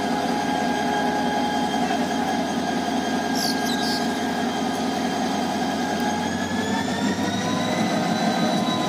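Diesel-electric locomotive's engine running steadily as it pulls a commuter train slowly out of the station. Its drone and whine rise a little in pitch from about six seconds in.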